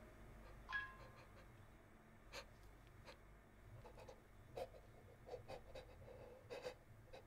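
Near silence, with faint breathing and a scattering of small, short clicks, a few each second from about two seconds in, as a man holds a pistol barrel in his mouth.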